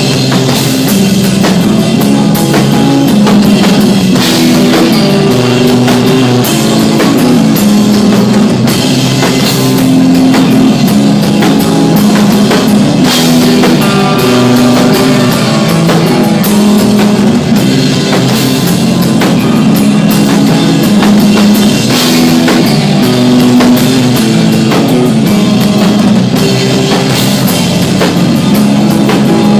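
Instrumental desert rock band playing live: electric guitar and bass over a driving drum kit with frequent cymbal hits. Loud and dense, thin in the deepest bass.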